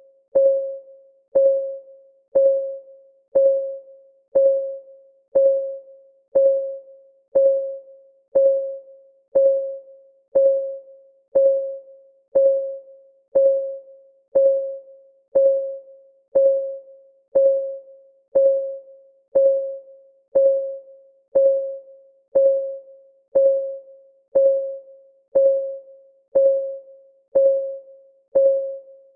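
Countdown timer's clock-ticking sound: a short pitched tick once a second, each ringing briefly and fading before the next, in a steady even rhythm.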